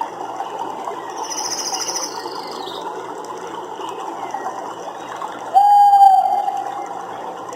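Nature ambience: a steady rushing background with a brief high trill near the start. About five and a half seconds in, one loud animal call comes in suddenly on a single held note and lasts about a second.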